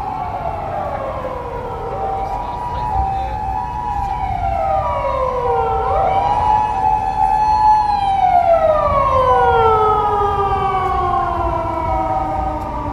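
Japanese ambulance two-tone 'pee-paw' siren, alternating high and low, from a Toyota Hiace ambulance on an emergency run. Over it sounds a wail siren that falls and rises slowly, a few seconds per sweep.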